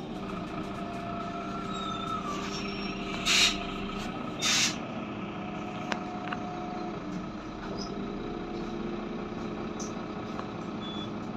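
Heuliez GX 427 Euro 5 articulated bus heard from inside the passenger cabin, its engine running steadily. About three seconds in come two short, loud hisses of compressed air from the bus's pneumatic system, about a second apart.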